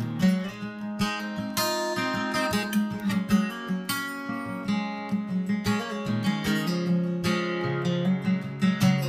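Background music: acoustic guitar being strummed and picked.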